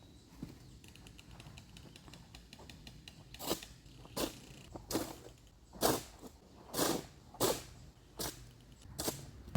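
Shovel scooping soil and dumping it into a tire: about eight short scraping strokes, a little under one a second, starting about three seconds in.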